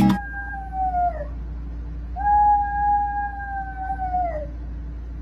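Small dog howling: two long, steady howls, each sliding down in pitch at its end, the second one longer.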